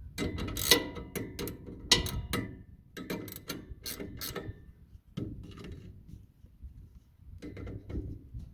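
Metal hand tools clinking and clanking: a run of sharp, irregular metallic clicks with a brief ring to them, thinning out about five seconds in, with a few more near the end.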